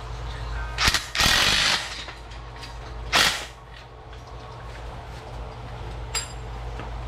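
Handheld power driver running bolts down on a steel power rack in three bursts: a brief one about a second in, a longer one of about half a second, and another about three seconds in.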